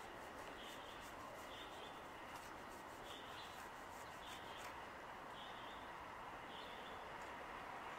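Faint outdoor background: a steady low hiss with short, high bird chirps repeating every second or so.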